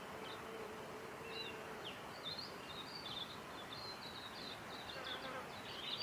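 Forest ambience with a steady hiss: a flying insect hums faintly for the first two seconds, then small birds give a rapid run of high, thin chirps and squeaks that go on to the end.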